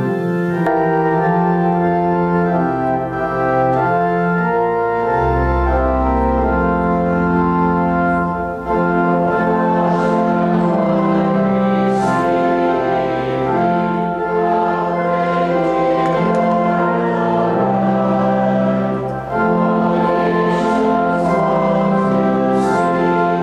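Church organ playing a hymn in slow, held chords over a moving bass line, with short breaths between phrases about nine and nineteen seconds in.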